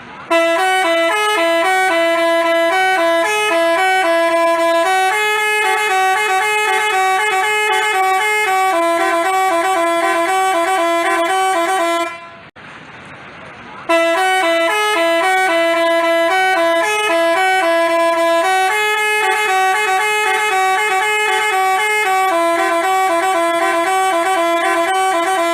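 Basuri telolet bus horn playing its fast, stepping multi-note melody, about twelve seconds long, then stopping briefly and playing the same tune again.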